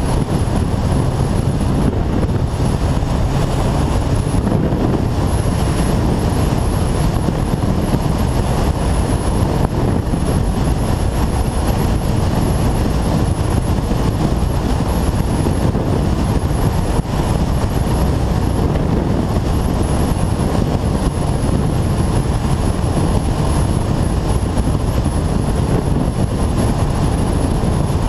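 Kawasaki ZZR1400 inline-four motorcycle ridden at speed: a steady rush of wind and road noise over its engine drone, with no let-up.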